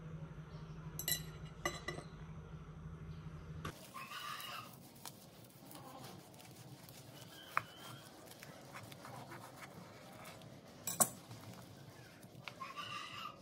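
Kitchen handling sounds: a couple of light clinks of a ceramic plate over a low hum, then a chef's knife cutting through a cling-film-wrapped rice sandwich on a wooden chopping board, with crinkling of the plastic wrap and a sharp knock of the blade on the board about eleven seconds in.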